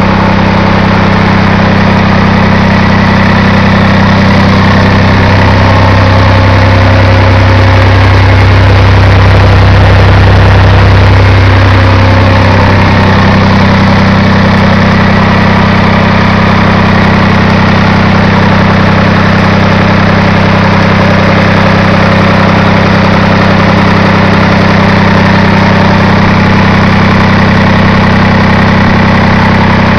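Leyland 245 tractor's diesel engine idling steadily on its first run after an engine repair, its note shifting briefly between about six and twelve seconds in.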